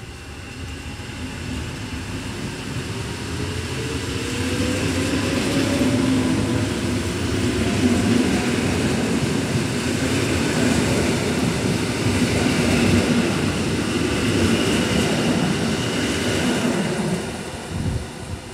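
Koleje Mazowieckie EN57AKM electric multiple unit pulling out and accelerating past. Its traction motors whine, rising in pitch over the first few seconds, while the wheel and running noise grows loud and then drops away as the last car goes by near the end.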